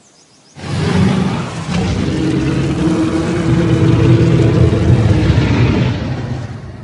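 Giganotosaurus sound effect: one long, deep dinosaur roar that starts suddenly about half a second in, holds for about six seconds and then fades away.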